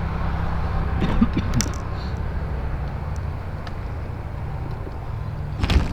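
A steady low engine-like hum, with a sharp knock near the end.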